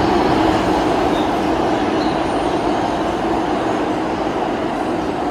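New York City subway train running past on the tracks: a loud, steady rumble of wheels on rails that eases off slightly toward the end.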